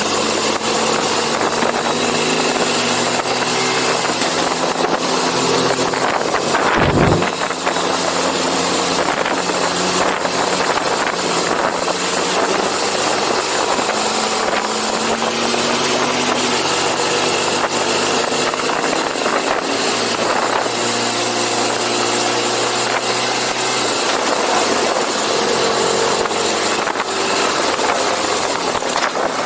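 KTM Duke motorcycle engine under way, its pitch climbing and dropping again and again through the gears, under heavy wind rush on the microphone. A brief gust or bump about seven seconds in.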